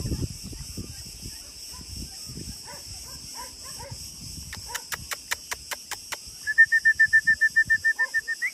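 Steady high insect buzzing, with a few short bird chirps. Midway comes a quick run of about ten sharp clicks, then near the end a fast trill of short high chirps, about nine a second, rising at the very end.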